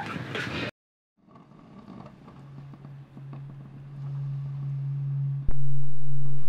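A steady low hum on one pitch, fading in after a brief cut to silence and growing louder, then jumping abruptly louder about five and a half seconds in.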